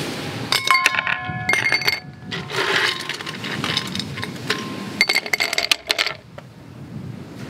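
Ice cubes clinking into a drinking glass, which rings with each drop. There are two rattling bursts, one about a second in and another around five seconds, with a rustle of ice being handled between them.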